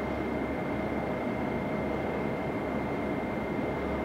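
Fire engine running under way, a steady rumble of engine and road noise with a thin, constant high whine over it.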